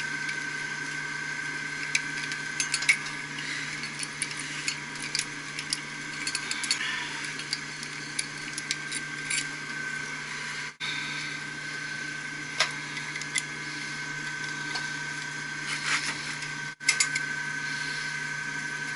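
Hand tools clinking and tapping on metal as a pump motor is disconnected and unbolted, in scattered short clicks. Under them runs the steady hum and high whine of machinery in the pump room.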